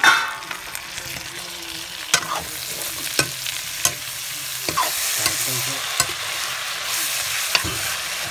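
Chicken, onions and tomatoes frying in hot oil in an iron wok. Chopped tomatoes hit the pan at the start with a loud burst of sizzling, which settles into a steady frying hiss. The metal ladle scrapes and knocks against the wok about six times as the pan is stirred.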